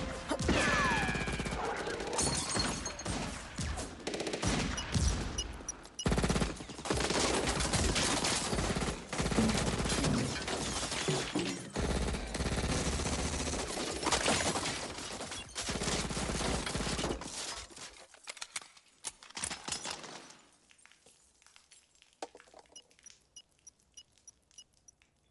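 Film sound effects of gunfire: a long fusillade of rapid shots from several guns. It thins out after about eighteen seconds into scattered faint shots.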